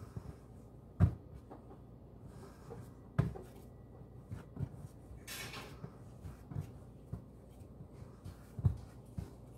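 Bread dough being kneaded by hand on a floured countertop: a series of dull thuds as the dough is pushed and folded over, three of them much louder than the rest, with a brief rustling hiss about halfway through.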